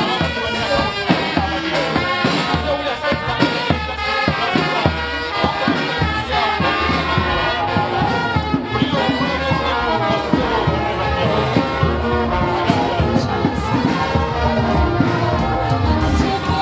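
A marching brass band playing: trumpets, trombones and a sousaphone over drums and cymbals keeping a steady beat.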